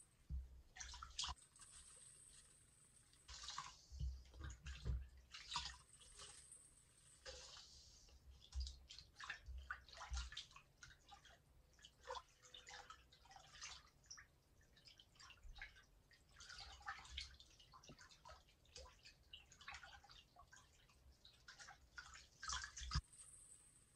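A sponge being squeezed and swished under water in a sink: faint, irregular splashing, squelching and dripping.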